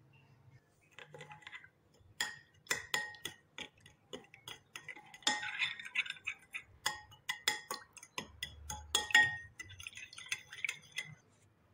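Metal spoon stirring cream into milk in a glass bowl, clinking and ticking against the glass in quick, uneven strokes with a light glassy ring. The clinking starts about two seconds in.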